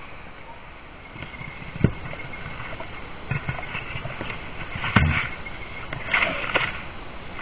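A leopard pawing and rubbing against a large mirror panel: a few sharp knocks and thuds with scraping, the loudest about five seconds in, then a short cluster of knocks about a second later, over steady forest background noise.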